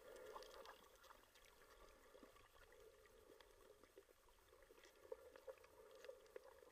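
Near silence underwater, muffled through a waterproof camera housing: a faint steady water hum with scattered faint clicks.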